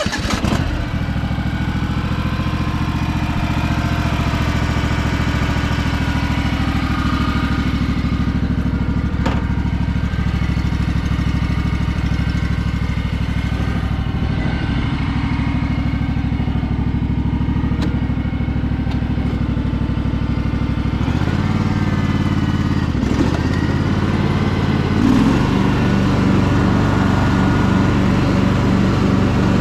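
Honda 16.5 hp twin engine of a Craftsman DLT3000 lawn tractor catching just after cranking and running steadily on its test run. About 21 seconds in its speed rises, dips briefly, then steps up higher and holds from about 25 seconds.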